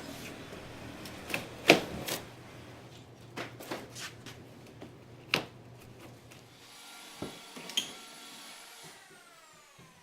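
An electric motor hums steadily under sharp knocks and clatter, the loudest about two seconds in; the hum stops about two-thirds of the way through, and near the end a tone slides down in pitch as something winds down.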